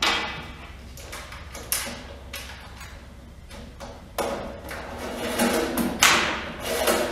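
Router power cord being handled and fed through a hole in the back of a router table dust bucket: a few knocks and thuds against the cabinet, with scraping and rustling in the second half and a sharp knock about six seconds in.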